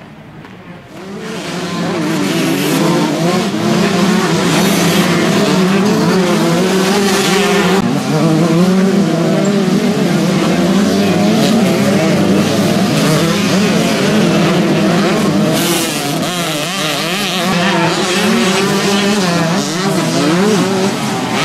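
Several motocross bikes racing, their engines revving up and down as they ride the track, loud from about a second in.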